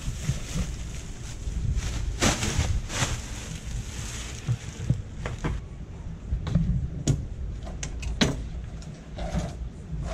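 Scattered knocks and clatter over a steady low rumble of wind on the microphone.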